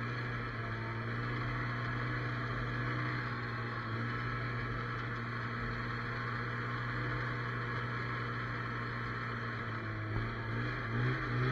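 Snowmobile engine running at a steady low speed, a constant low hum, with its pitch rising and falling a few times near the end as the throttle is worked.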